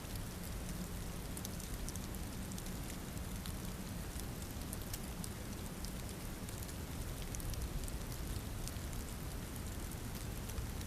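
Steady rain: an even hiss with many sharp drop ticks scattered through it.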